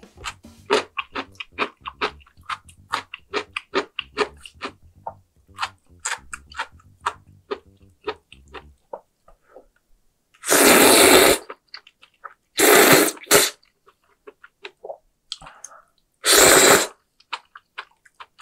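Close-up eating sounds of a person eating kalguksu noodles from spicy dumpling hot pot: quick wet chewing and lip-smacking clicks for about nine seconds, then three loud slurps of the noodles, each about a second long.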